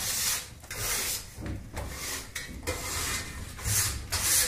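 Small hand scraper scraping dried plaster off a plasterer's straightedge in repeated strokes, about one a second.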